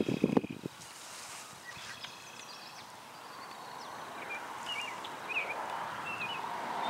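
Outdoor ambience with birds giving short, repeated chirps. Over the last couple of seconds a vehicle approaches on the highway, its road noise growing steadily louder.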